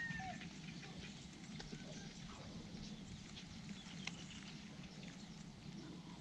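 Quiet outdoor background: a low steady hum with a few faint, scattered clicks and light ticks.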